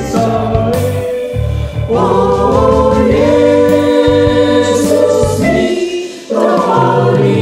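Mixed choir of men and women singing an Indonesian hymn in held, sustained phrases over steady low accompaniment, with a short break for breath about six seconds in before the next phrase.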